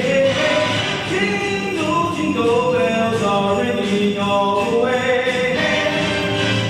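A choir singing, with several voices holding long notes and moving together from pitch to pitch.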